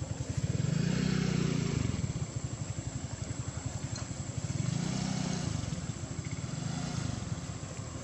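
An engine running with a low, pulsing sound that swells and eases off about three times.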